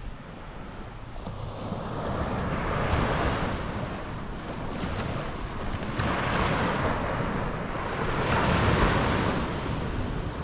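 Small waves breaking and washing up a sandy beach, the surf hiss swelling and falling back about three times, with wind rumbling on the microphone.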